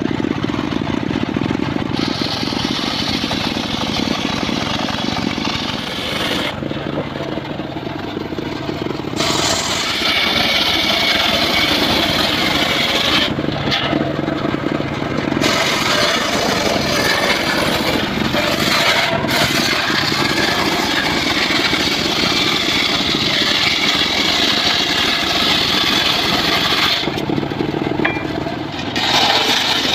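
Homemade engine-driven bench circular saw ripping a teak beam lengthwise: the engine runs steadily under the hiss and whine of the blade cutting through the wood. The high cutting noise drops away for a second or two, three times.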